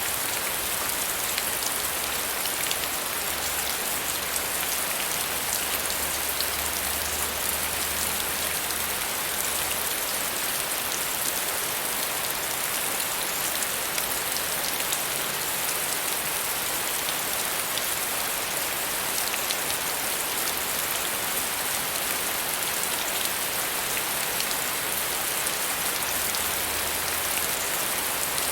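Steady soft rain falling on a surface, an even hiss full of fine pattering drops.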